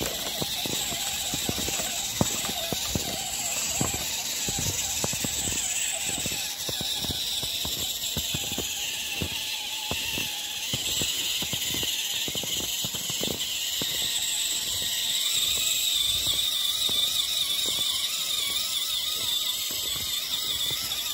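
HSP 4WD RC crawler's electric motor and gears whining steadily, with a dense crackle of clicks and crunches as its wheels churn through wet, sticky snow that is packing onto the tyres. The whine gets a little stronger in the second half.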